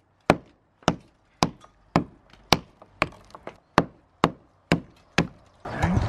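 Lump hammer striking a steel chisel to break out a cracked brick above a lintel: about a dozen sharp, evenly spaced blows, roughly two a second.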